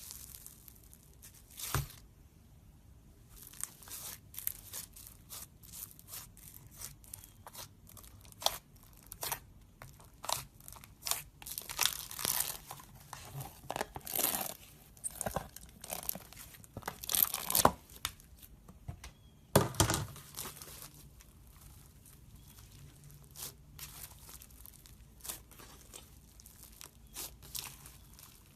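Slime being worked by hand, stretched and pulled apart, giving irregular crackling and popping clicks. They come thickest in the middle, and a sharp louder pop comes near the end.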